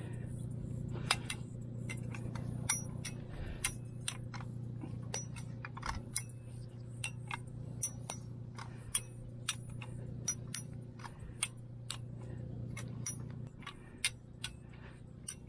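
Hand-cranked ratchet come-along being worked to tension a winch line, its ratchet clicking sharply about twice a second. A steady low engine hum runs underneath.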